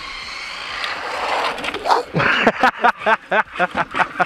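A man laughing in a quick run of short bursts, about five a second, starting about halfway through. Under it is a faint hiss from the electric RC drift car's motor and tyres on wet asphalt.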